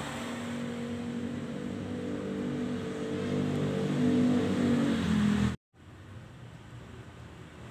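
A vehicle engine running with a steady low hum that grows louder about three seconds in. It cuts off abruptly after about five and a half seconds, leaving quieter steady background noise.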